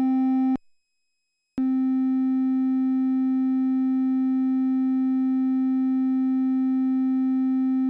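Make Noise DPO analog oscillator holding a steady synth tone at C, near middle C, with faint overtones: a rounded, not-pure wave. It cuts out about half a second in, stays silent for about a second, then comes back and holds steady.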